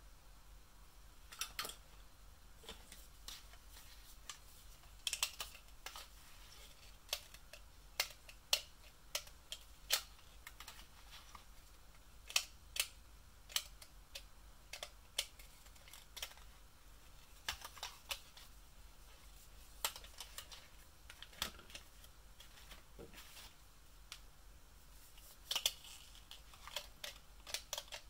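Hard plastic toy doctor-kit pieces handled: irregular sharp clicks and taps, about one a second, as the toy glasses and toy instrument are gripped and turned over, with a short burst of clicks near the end.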